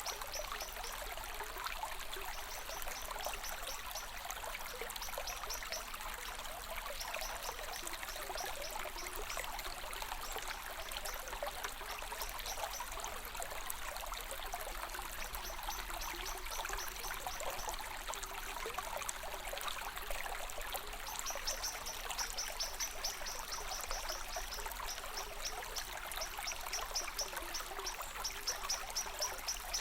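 Running water of a small stream trickling steadily. A high, rapid chirping recurs in short runs over it, stronger in the last third.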